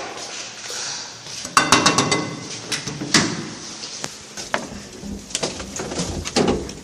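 A lift's sliding doors and mechanism clanking and clicking: a cluster of sharp metallic clicks about a second and a half in, another sharp clack about three seconds in, then further knocks and rattles.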